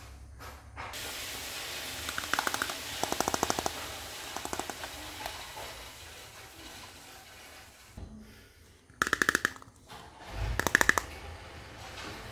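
Plastic toy kitchen pieces being handled and set down, clattering in several short bursts of rapid rattling clicks, with a light rustling hiss in between.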